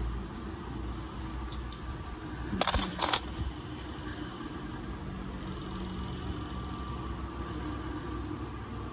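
Steady low background rumble, with two short sharp clicks close together about three seconds in.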